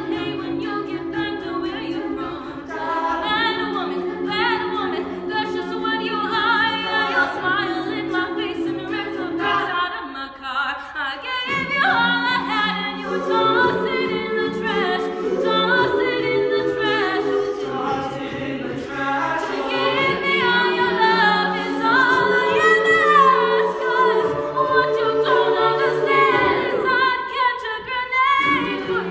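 Mixed-voice a cappella choir singing: held chords underneath a moving melody line. The sound thins out briefly about ten seconds in, then fills out again.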